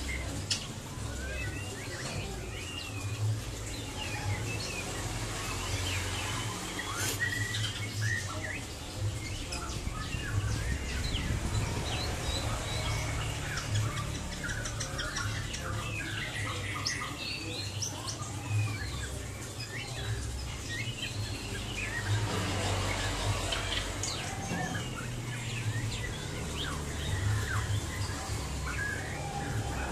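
White-rumped shama (murai batu) singing without pause, a varied run of quick whistles, slurred notes and chirps, over a low rumble.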